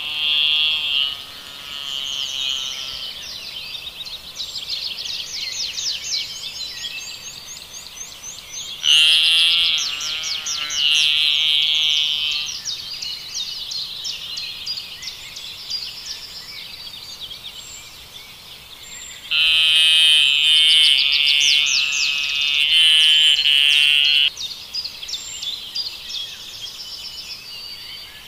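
High-pitched animal calls: rapid chirping trills throughout, with two louder spells of calling about a third of the way in and again past two-thirds.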